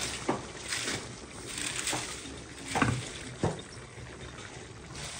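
Shredded cabbage tipped from a glass bowl into a pan of stew, rustling and landing in about five soft knocks over a steady hiss.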